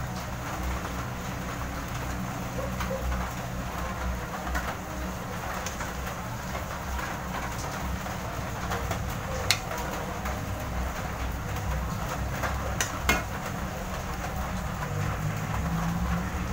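Steady low hum under a constant hiss, with a metal ladle scraping and clinking against a wok as fish is dished out. The two sharpest clinks come about nine and thirteen seconds in.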